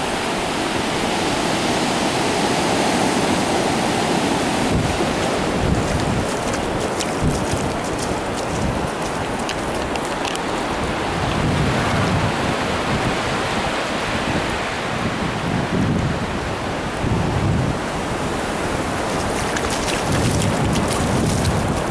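Surf washing onto a flat beach, a steady rush, with wind buffeting the microphone in low gusts through the second half.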